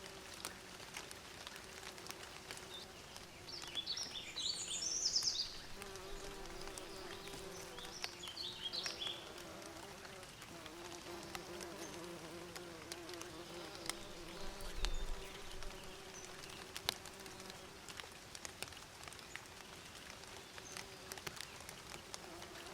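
Bees buzzing steadily, with a bird chirping in two short bursts, about four seconds in and again about eight seconds in.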